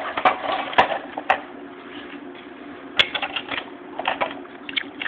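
Scattered clicks and taps of a plastic toy being handled. There is a sharper click about three seconds in, then a few quick clusters of clicks near the end, over a faint steady hiss.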